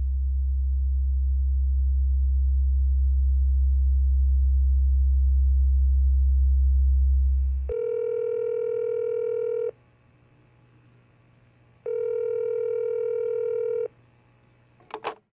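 A deep drone swells slowly and cuts off about eight seconds in. Then a phone's ringback tone sounds twice, each ring about two seconds long with a two-second gap, followed by a short click near the end.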